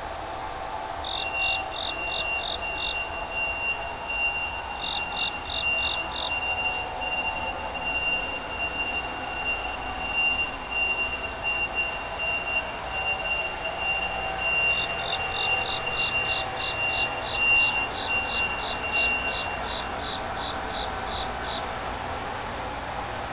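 Insects chirping: runs of high, evenly spaced chirps, about three or four a second, come in bursts of a few seconds over a steady thin high trill and constant background noise.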